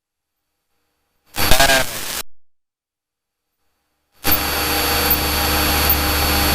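Dead silence broken by a brief snatch of a voice about a second and a half in. From about four seconds in comes the steady drone of a Cessna's piston engine and propeller heard inside the cockpit, with a constant hum.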